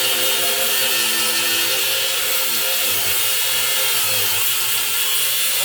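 Handheld power tool cutting through steel, running steadily with a wavering motor whine under a loud hiss.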